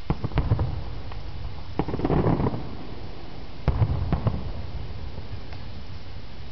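Aerial firework shells bursting in the distance: three clusters of sharp bangs and pops, one near the start, one about two seconds in and one about four seconds in.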